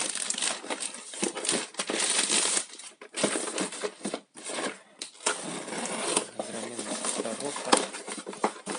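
Plastic packaging crinkling and rustling in bursts as packs of fishing lures are handled, with scattered sharp clicks of small items.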